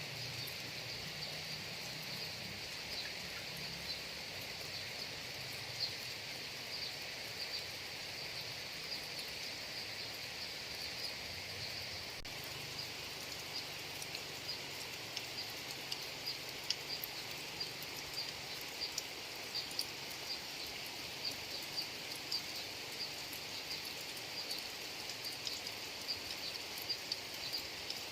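Steady rain falling, with scattered sharper drop ticks that come more often in the second half.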